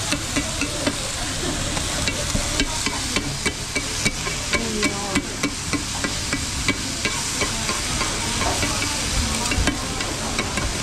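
Metal spatulas chopping and scraping cabbage on a hot iron griddle, clacking irregularly a few times a second over the steady sizzle of the frying cabbage. This is monjayaki's first stage, the cabbage chopped up and then pushed out into a ring.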